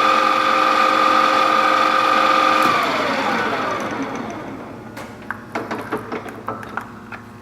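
Deckel FP2 milling machine spindle running at 1250 RPM with a steady gear whine, then switched off about three seconds in and winding down with falling pitch. A run of clicks and clunks from the machine follows near the end.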